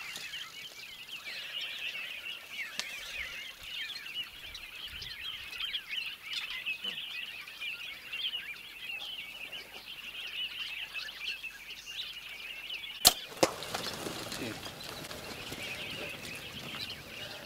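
Many birds chirping at a waterhole. About 13 seconds in comes a bow shot: two sharp cracks about half a second apart, the string's release and then the arrow striking. A rush of scuffling follows as the impala herd bolts.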